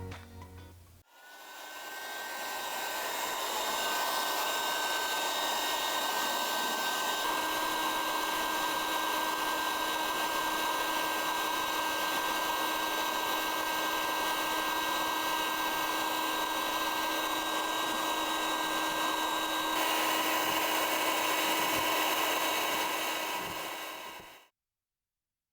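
Handheld car paint polisher running steadily with a whining motor. It spins up about a second in, its tone shifts slightly twice, and it cuts off suddenly near the end.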